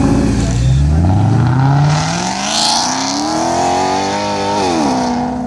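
Maserati GranTurismo MC's V8 accelerating away hard, its pitch climbing for about three and a half seconds, then dropping sharply at an upshift near the end and holding steady.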